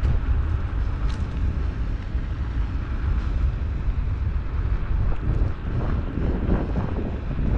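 Wind buffeting the camera's microphone while riding an electric unicycle along a road: a loud, steady low rumble.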